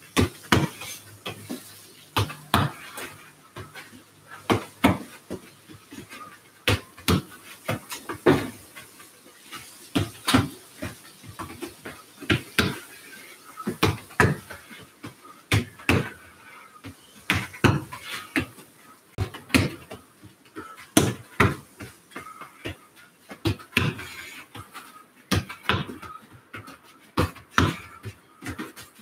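A football being kicked and coming back off a rebound wall in a passing drill: a string of sharp, irregular knocks, about one to two a second, from foot strikes on the ball and the ball hitting the wall.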